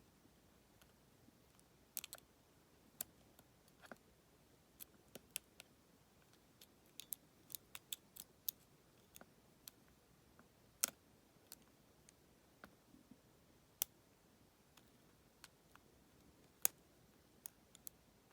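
Lock pick and tension wrench working the pins inside a Federal PL90PE lockout padlock: faint, irregular metallic clicks and ticks, a few sharper than the rest.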